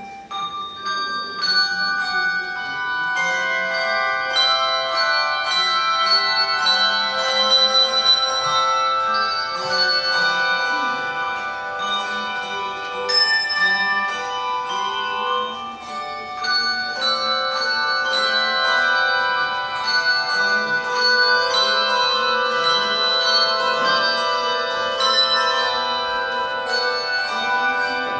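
A handbell choir playing a piece: many ringing bell notes start about a second in, several sounding together and overlapping as they ring on.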